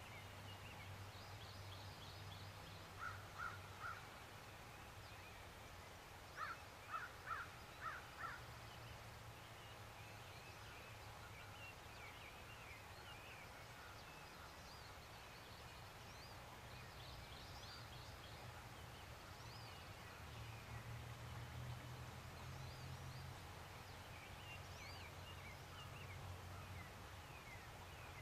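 Birds calling in woodland: a short run of loud, harsh calls about three seconds in and a longer run of four or five about seven seconds in, over songbirds chirping and trilling.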